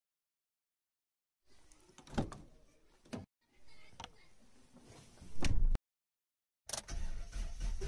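Car door handled from inside, with clicks and knocks, and pulled shut with a heavy thud. After a short pause an ignition key is turned and the car's engine starts about a second before the end.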